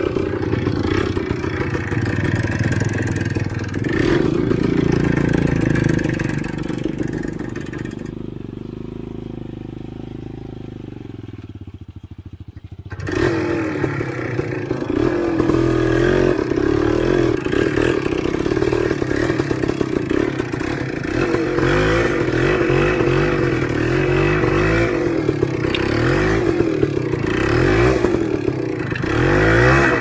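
Enduro motorcycle engine running and revving on a rough off-road trail, its pitch rising and falling, with rattles and scrapes. It eases off and quietens for a few seconds near the middle, then picks up sharply about 13 seconds in.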